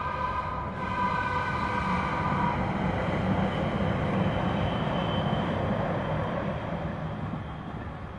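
Light-rail train's horn sounding one held chord for about the first two and a half seconds, then the train passing over the crossing, its wheel and rail noise swelling and fading away near the end.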